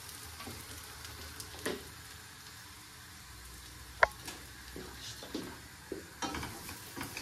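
Food sizzling in a pan on the stove, with a few knocks of utensils and one sharp metallic clink about four seconds in.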